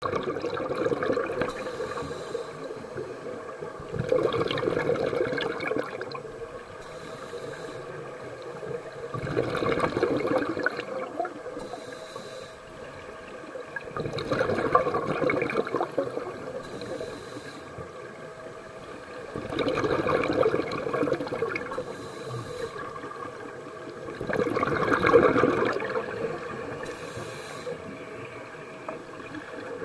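A scuba diver breathing through a regulator underwater, in a steady cycle about every five seconds: a short hissing inhale, then a longer, louder rush of exhaled bubbles. Five full breaths.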